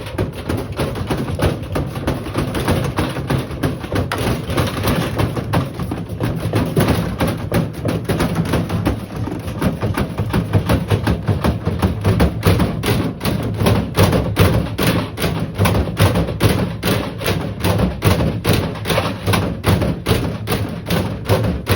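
Lamona LAM8775 washing machine spinning with its drum knocking and thudding against the cabinet. The knocks become a regular beat of about three to four a second in the second half.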